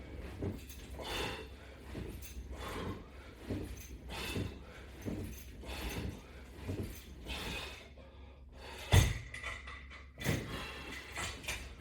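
Repetitive movement sounds from a sit-up or crunch set on a strap-and-band exercise rig, repeating roughly once a second. One sharp, loud thump about nine seconds in.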